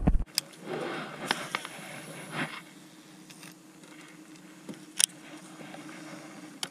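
Fishing tackle and rod being handled in a small aluminium boat: scattered clicks, knocks and scrapes, with a rushing noise for the first couple of seconds. A steady low hum then runs on, and a single sharp click comes about five seconds in.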